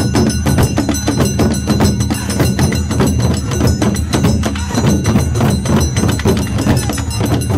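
Several large barrel-shaped taiko drums beaten hard in a fast, driving rhythm, many strokes a second, with a steady high ringing tone over them.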